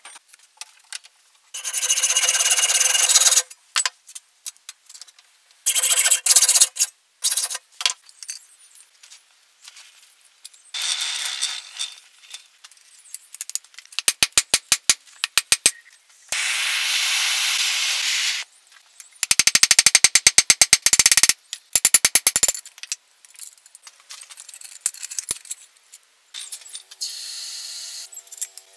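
Hand metalwork on forged steel hinges: several separate bursts of scraping noise, each a second or two long, and runs of quick, evenly spaced light taps.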